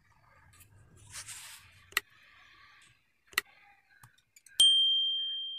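Workbench handling during a phone repair: a brief scrape and two sharp clicks, then a small metal object is struck and rings with a clear high tone that fades away over about a second and a half.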